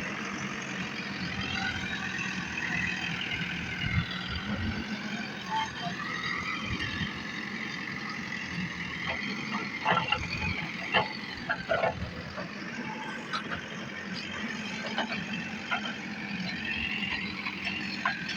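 JCB backhoe loader's diesel engine running under load, its pitch rising and falling as the machine works, with a few sharp knocks around the middle.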